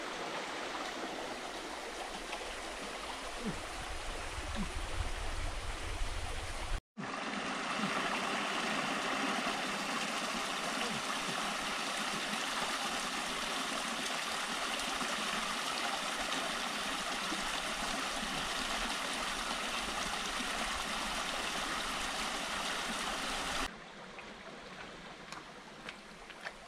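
Small forest stream running over rocks: a steady rush and trickle of water. It drops out briefly about seven seconds in and is quieter near the end.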